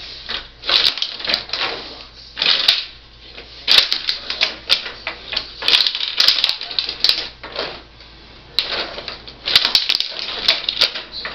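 Rod table hockey in play: the puck clacking off the player figures, the boards and the goalies while the rods are pushed and twisted. It comes in irregular flurries of sharp clicks and clatter with short pauses between them.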